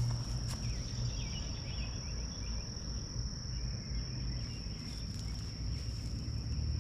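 Insects trilling outdoors: one steady, high, unbroken tone over a low background rumble.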